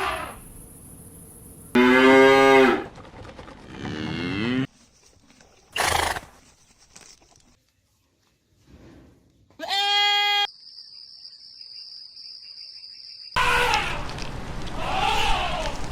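Farm-animal calls from separate clips spliced one after another: about five short pitched calls, each under a second, with sudden starts and stops and quieter gaps between.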